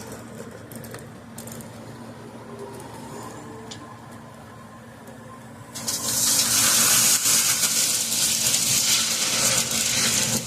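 A heavy machine's diesel engine runs steadily. About six seconds in, a sudden loud rushing starts and goes on, the sound of loose stone pouring from a bucket during loading.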